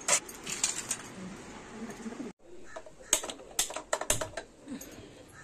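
Handling taps on a cutting board, then a gas stove knob turned with a run of sharp clicks from the burner's igniter to light the flame, about three seconds in.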